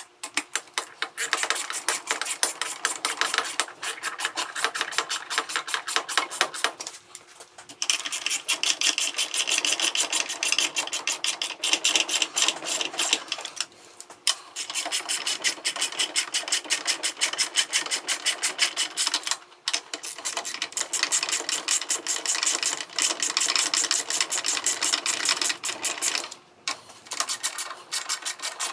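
Ratchet clicking rapidly in long runs, broken by a few short pauses, as the overdrive housing bolts of a 47RE/48RE automatic transmission are run down snug.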